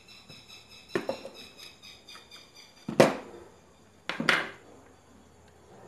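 Hand tools and small metal parts knocking and clattering on a wooden bench while the thermal fuse is unscrewed and lifted out of an electric iron: a few light clicks about a second in, then two louder knocks about three and four seconds in.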